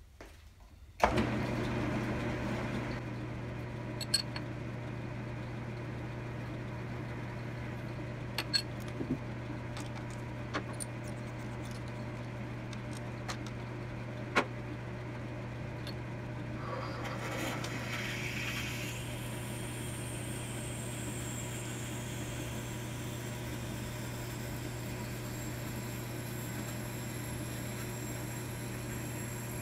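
Logan 10-inch lathe switching on about a second in, then running steadily with a low motor hum while a twist drill in the tailstock is fed into the spinning stock to drill out its bore. A few sharp clicks sound through the run.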